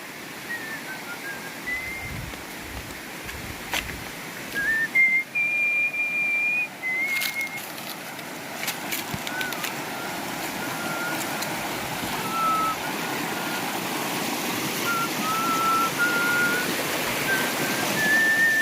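River water running steadily, with a slow tune whistled over it in long, held notes stepping from pitch to pitch.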